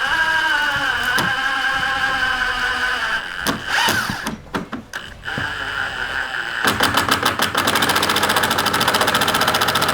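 A cordless power driver driving screws through a door frame. A motor whine sags a little under load, a few sharp clicks follow, and then a long, fast, even rattle of the tool hammering the screw home.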